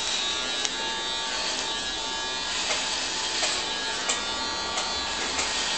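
Electric hair clippers buzzing steadily as they are run through hair, with a few faint clicks along the way.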